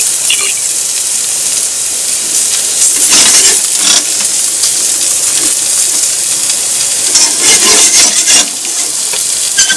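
Potato wedges frying in butter in a metal frying pan: a steady sizzle. Chopsticks stir the wedges and clack against the pan at about three to four seconds in and again around eight seconds.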